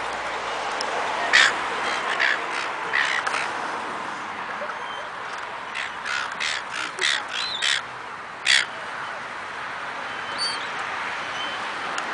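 Silver gulls calling: short harsh cries in clusters, a quick run of about six in the middle and one loud single cry after it, over a steady background rush.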